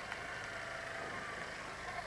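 Heavy-haulage truck and multi-axle trailer rolling slowly past: a steady noise of tyres on wet tarmac over a low engine hum.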